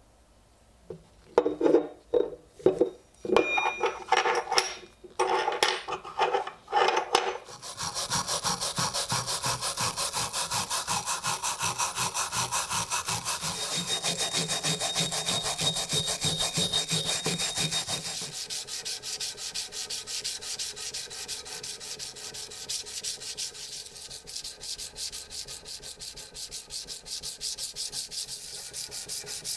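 Hand scrubbing of a derusted iron pickaxe head: a few separate knocks and scrapes, then fast, even back-and-forth scraping strokes. Past the middle it turns to softer, steady rubbing with sandpaper on the blade.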